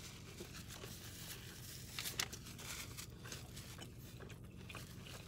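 Faint chewing and crunching on a crispy fried chicken sandwich, with a couple of sharper crunches about two seconds in.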